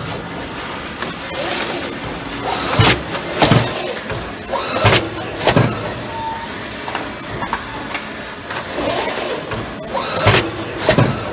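Milbor Revolution tray sealer running through its sealing cycle on cherry-tomato punnets: pairs of sharp metallic clunks about half a second apart, repeating every few seconds, over a steady mechanical running noise.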